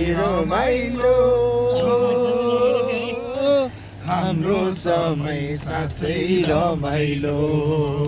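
A person singing in a chant-like way: one long held note about a second in, then a run of shorter notes.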